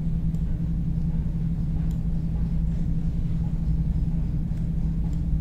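Steady low hum and rumble of the recording background, with a few faint mouse clicks.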